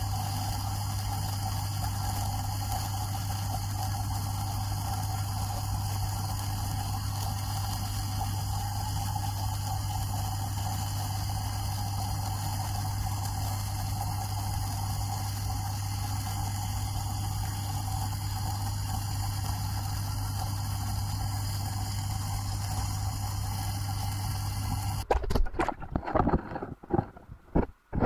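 Submersible sludge pump running on the pond bottom, heard underwater as a steady low hum over an even rush of water. Near the end the hum cuts off and irregular loud knocks and thumps follow.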